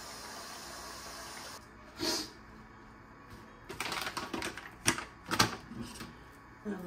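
Bathroom sink tap running, shut off about a second and a half in. A short splash follows, then a quick run of sharp clicks and knocks as bottles and caps are handled on the counter. A hummed tune begins at the very end.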